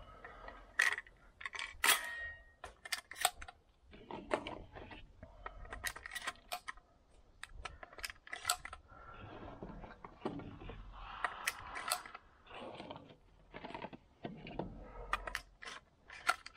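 A run of sharp metallic clicks and clinks, one ringing briefly about two seconds in: shotgun shells and the action of a semi-automatic shotgun being handled between shots.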